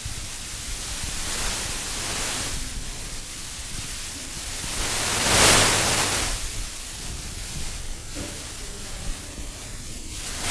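Whiteboard marker drawing lines on a whiteboard: several drawn-out scratchy strokes, the loudest about five seconds in, over a steady hiss and a faint low hum.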